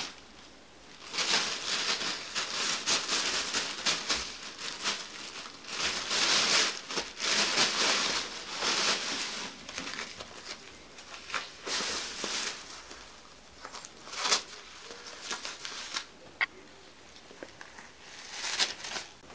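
Thin plastic bag rustling and crinkling as a cat paws at it, pushes into it and rolls on it, in bursts that are dense for most of the first two thirds, then sparser, with a final burst near the end.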